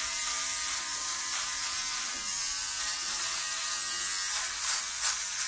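Battery electric hair trimmer buzzing steadily as it is run over the neck and chest hair, with a few louder brief rasps near the end as it passes through hair.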